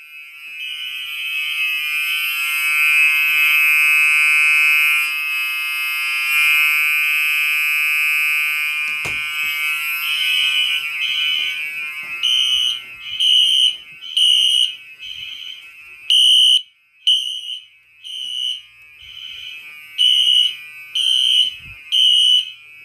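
Fire alarm system in alarm after a pull station is activated, with several horns sounding out of sync. For roughly the first half the horn sound is near-continuous and buzzing; it then breaks into loud, separate beeps about one to two a second.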